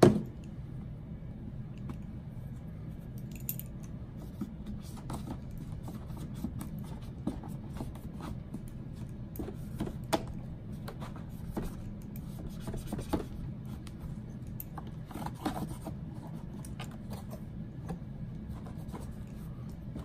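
Scattered scraping, rubbing and small clicks of hands working over the plastic body of an iRobot Roomba i7 robot vacuum, clearing debris from around the filter door, with a sharp click right at the start. A steady low hum sits underneath.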